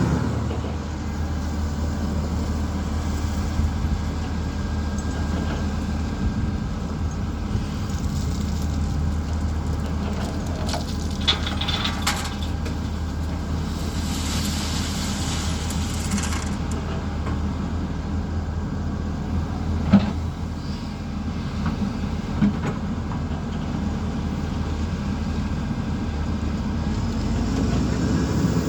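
Heavy-equipment diesel engine running steadily with a low drone, from the excavator or wheel loader at work. A few metal clanks sound over it, the sharpest about two-thirds of the way through, and a hiss lasts a couple of seconds around the middle.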